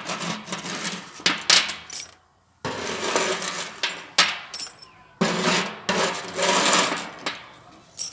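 Small scrap steel pieces from stripped microwave fan motors clattering and clinking as they are gathered up, in about three rattling bursts with short pauses between them.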